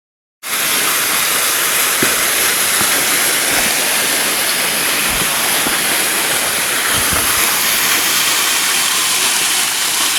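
Small waterfall splashing into a pool, a loud, steady rushing hiss that starts abruptly about half a second in.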